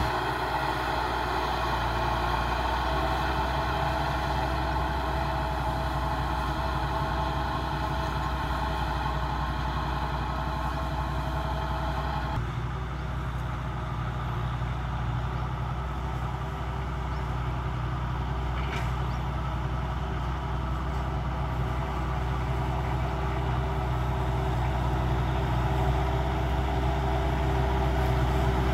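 Kubota farm tractor's diesel engine running steadily under load as the tractor works the field, growing a little louder near the end as it comes closer. The upper part of the sound drops away suddenly about twelve seconds in.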